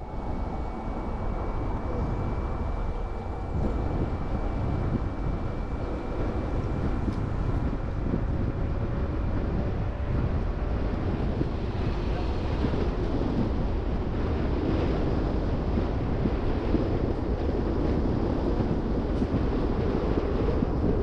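A car driving: a steady deep rumble of road and wind noise, with a faint steady whine above it.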